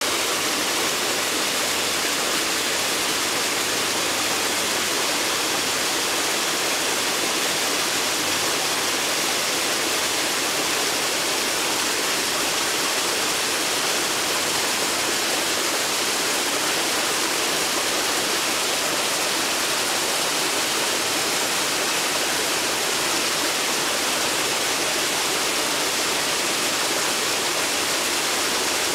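Steady rushing, hissing noise of aquarium aeration: air bubbling up through box filters in the fish tank.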